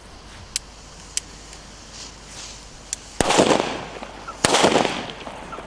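Two Katan China Böller D firecrackers going off, two loud bangs about a second and a quarter apart, each trailing off with an echo. A few faint pops and crackles come before them as a fuse burns.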